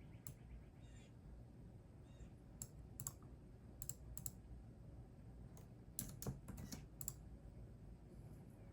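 Computer keyboard typing: sparse, irregular key clicks, with a quick run of several keystrokes about six to seven seconds in.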